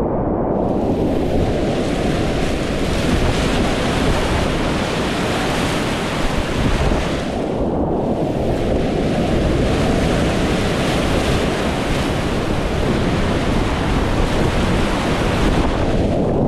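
Whitewater rapids rushing loudly around a kayak at high-water flow, heard right at the water's surface, with wind on the microphone. The sound goes briefly duller about eight seconds in and again near the end.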